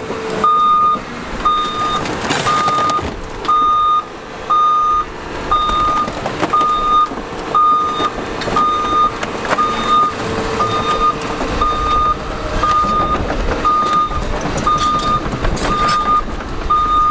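Heavy machine's backup alarm beeping steadily, about one beep a second, over the machine's running engine, whose low rumble grows louder about two-thirds of the way through.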